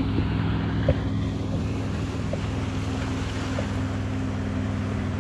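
Steady low hum of a boat motor running, with wind on the microphone; a single knock about a second in.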